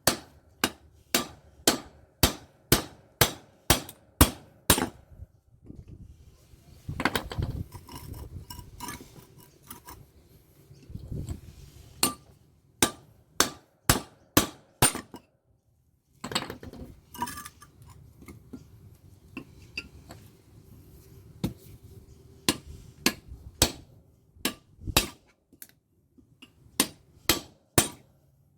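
Hammer striking a small air-conditioner transformer in runs of sharp metallic blows, about two a second, with scraping and clinking of metal parts between the runs: the transformer being broken down to get at its copper windings.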